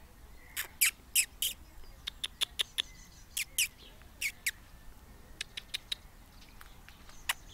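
Sparrow chirping: a series of short, sharp cheeps in quick clusters, loudest in the first few seconds and fainter and sparser toward the end.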